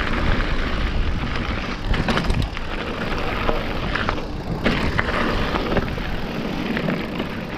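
Mountain bike riding fast down a dirt trail: tyres rolling over the ground with frequent rattles and clicks from the bike, over a steady low rumble.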